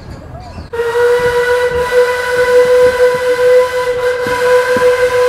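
Steam locomotive's whistle blowing, starting sharply about a second in and held as one long, steady note with a hiss of steam behind it.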